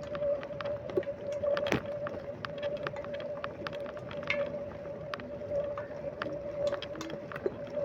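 Bicycle on the move: a steady whine with frequent irregular clicks and rattles over a rushing noise.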